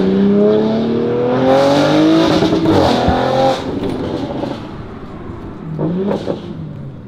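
Audi RS5's twin-turbo V6, with 034 Motorsport downpipes and an AWE Touring exhaust, accelerating hard, heard from inside the cabin. The note rises steadily for about three and a half seconds, then drops away and gets quieter as the throttle closes, with a short blip of revs near the end.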